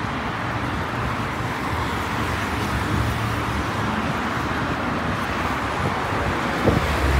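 Steady road traffic noise from cars driving along a street, with a short knock near the end.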